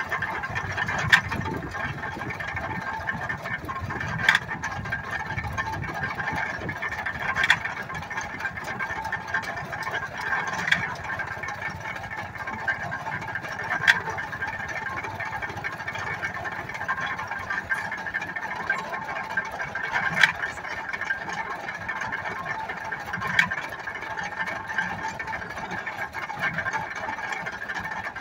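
Antique belt-driven stationary baler running: a steady mechanical clatter with a sharp knock repeating about every three seconds.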